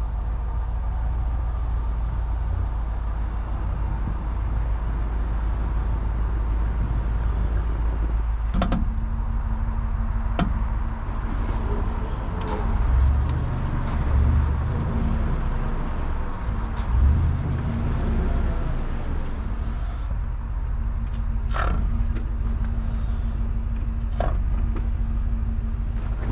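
Pickup truck driving on snow: steady engine and tyre rumble that swells several times in the middle, a steady hum joining about nine seconds in, and a few sharp clicks or knocks.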